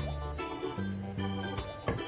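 Background music: a light instrumental tune of plucked or keyboard notes over held bass notes.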